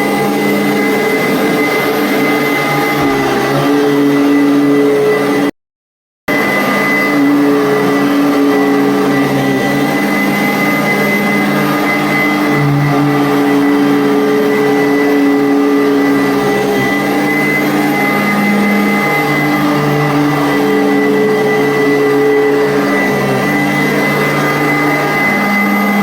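Commercial vacuum cleaner running steadily with a high motor whine, its lower tones shifting as it is worked. The sound drops out completely for about half a second, roughly five and a half seconds in.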